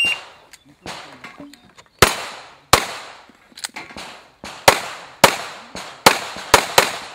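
An electronic shot timer gives one short beep as the start signal. From about two seconds in, a handgun fires about seven shots, each a sharp crack with a short decaying tail, the last three in quick succession.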